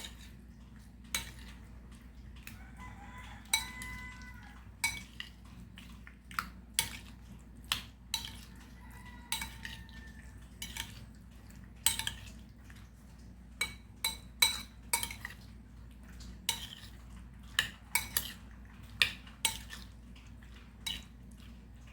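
Spoon clinking and scraping against a bowl as mayonnaise and butter are stirred through chunks of breadfruit, in irregular taps about once or twice a second.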